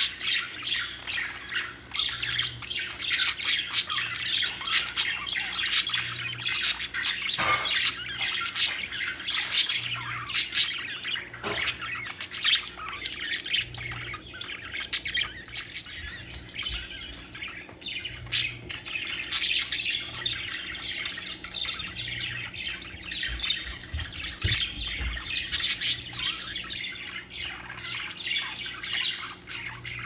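Several budgerigars (pet parakeets) chirping and chattering without a break, a dense stream of short, high calls with sharper cries mixed in.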